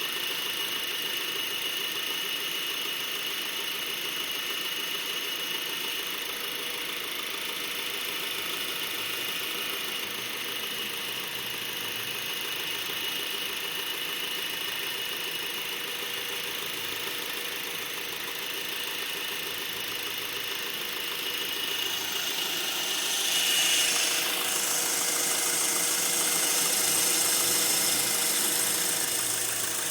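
2012 Honda Accord LX's 2.4-litre four-cylinder engine running with a steady high-pitched squeak or whistle over it, growing louder about two-thirds of the way through. The dealer calls the noise normal; the owner doubts this, as another car of the same model doesn't make it.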